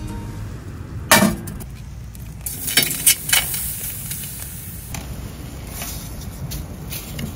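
Scallops in the half shell being tipped into a stainless steel pan on a wood stove: a sharp metallic knock about a second in, then several clinks of shell on metal, followed by a steady low sizzle.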